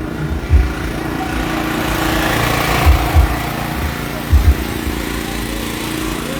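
An engine running with a steady hum, and a rush of noise that swells and fades about two to three seconds in. Several short low thumps come through.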